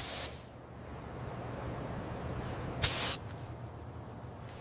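Short hissing bursts of spray, one cutting off just after the start and another about three seconds in, over a faint low steady hum.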